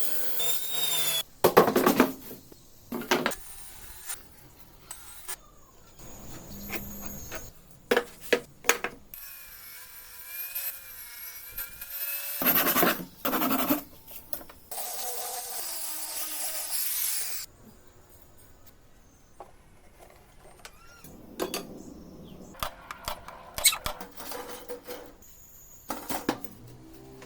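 Woodworking shop sounds in quick cuts: power tools running in short bursts, sawing and rubbing on wood, with knocks and clatter between.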